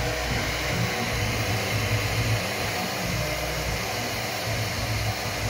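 Qidi X-Plus 3 3D printer running a print: its cooling fans blow steadily at full speed, with a low motor hum that rises and falls about once a second as the print head moves around the part.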